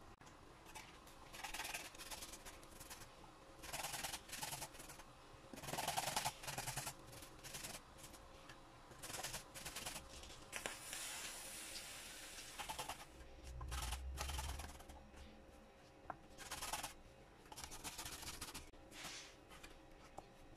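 Garlic cloves being grated on a metal grater: repeated rasping strokes that come in irregular spurts, with a soft low bump of the grater against the board about two-thirds of the way through.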